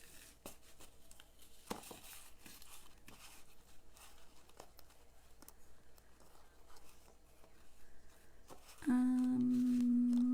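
Soft rustles and small taps of paper and ribbon being handled as satin-like ribbon is wrapped around a cardstock card layer. Near the end a person hums one held note for about a second and a half.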